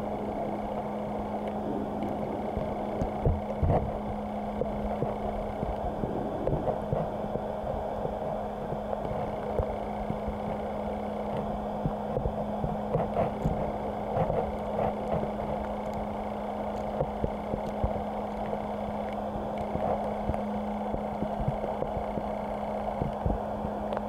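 Steady rushing of water in an artificial stream, with a constant low hum and scattered soft knocks throughout.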